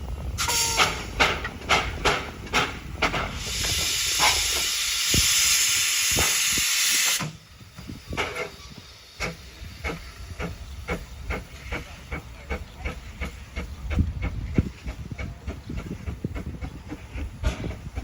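Narrow-gauge steam locomotive working: sharp exhaust beats, then a loud steady hiss of steam for about four seconds that cuts off suddenly, followed by quieter, rapid, even beats as the train runs.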